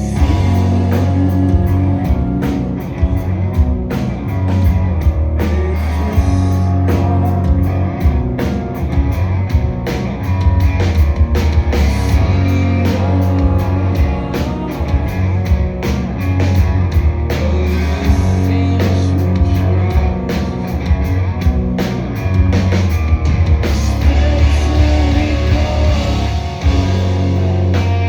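Live rock band playing a song at full volume: electric guitars, a heavy bass line and a drum kit struck in a dense, steady pattern.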